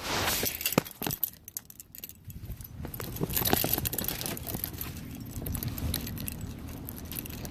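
Handling noise as a phone camera is swung about: a few sharp clicks in the first second or so, then a louder stretch of rustling and jingling about three to four seconds in, over a low rumble.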